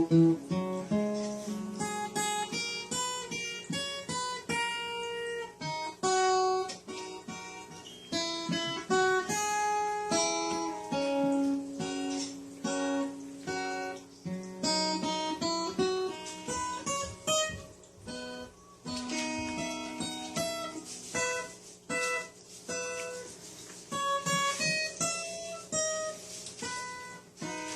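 Solo acoustic guitar playing an instrumental interlude between sung verses, with picked melody notes over strummed chords.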